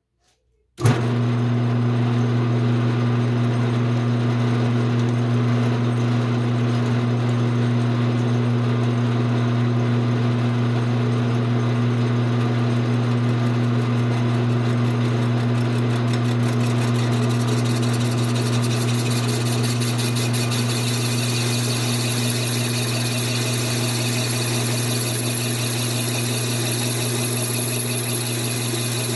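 Metal lathe switching on about a second in and running steadily with a motor hum. In the second half a thin high tone and hiss grow as the cutting tool takes about 50 thou off the end of the thin-wall tube.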